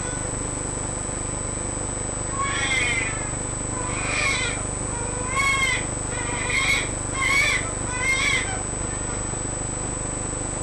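Two-month-old baby's high-pitched stridor: six squeaky, pitched breath noises, each rising and falling, about a second apart from a couple of seconds in.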